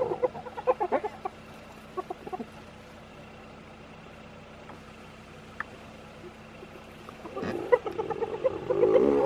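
Spotted hyenas giggling in short, rapid staccato notes as the pack crowds and scuffles with one of its members. The calls come thick in the first second or two, fall away in the middle, then build again and grow louder near the end.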